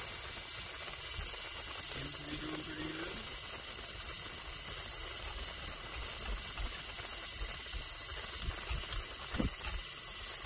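Rebuilt Bosch blower motor of a 1981 VW Rabbit heater running steadily, its squirrel-cage fan giving an even whir and rush of air. A few low thumps and clicks come in the second half.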